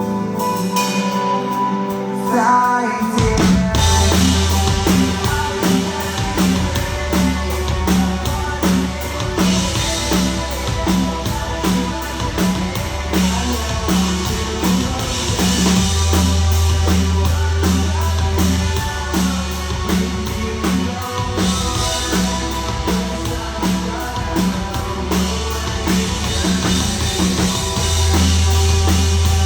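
Rock band playing a chorus at a soundcheck: held keyboard chords, then about three seconds in the drums and bass come in with a steady beat.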